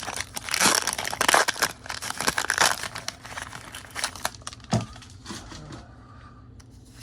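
Foil Pokémon booster pack wrapper crinkling and tearing open in loud rustling bursts for the first three to four seconds, then only faint handling.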